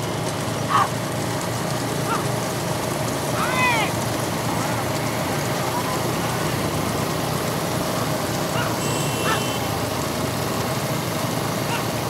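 Steady running noise of the motorcycles riding alongside racing bullock carts, with a few short high-pitched cries that rise and fall, the clearest a little over three seconds in.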